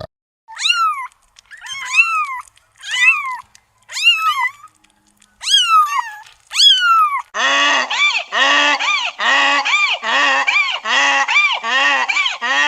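Animal calls: six separate honk-like calls that rise and fall in pitch, then, about seven seconds in, a fast run of lower, harsher calls about two to three a second.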